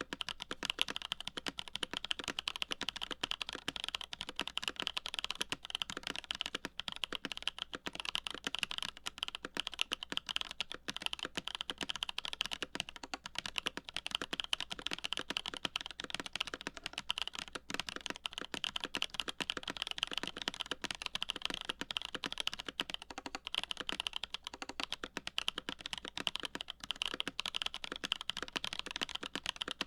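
Steady, fast typing on a CA66 mechanical keyboard with lubed Holy Boba tactile switches, a full aluminium plate and GMK keycaps: a dense, unbroken stream of key clacks.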